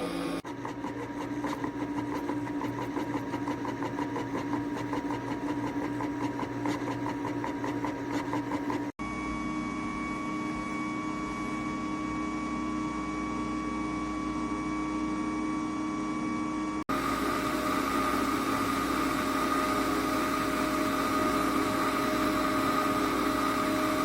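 Electric ice cream maker running, a steady motor and compressor hum with a faint even rattle. The hum changes abruptly twice, about a third and two-thirds of the way through.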